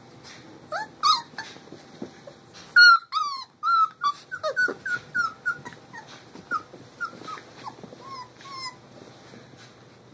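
Young puppies whimpering and yelping in a quick series of short, high cries, loudest about three seconds in.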